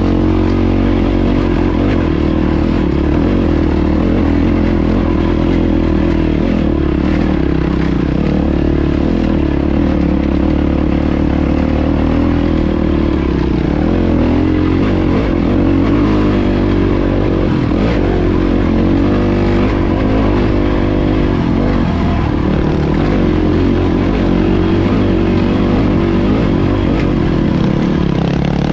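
Yamaha WR450F's single-cylinder four-stroke engine running loud and close while riding a dirt track, the pitch mostly steady but rising and falling around the middle as the throttle is worked.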